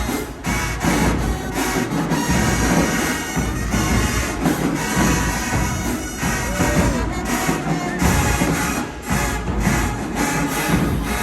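High school marching band playing at full volume: sustained horn lines over drum hits.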